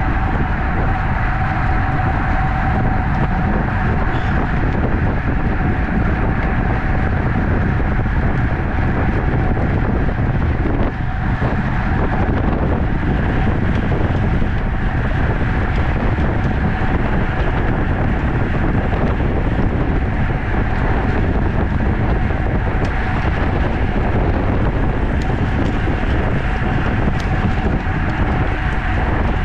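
Steady wind rush over the microphone of a camera riding on a racing bicycle at speed, with a thin constant whine running underneath.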